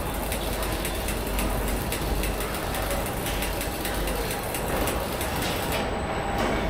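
Steady running noise of automated assembly-line machinery, with a low rumble and frequent light clicks and knocks.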